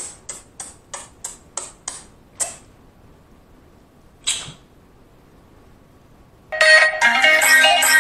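A fading echo of short hissy repeats, about three a second, dying away over the first two and a half seconds, with one more hiss about four seconds in. About six and a half seconds in, outro music starts.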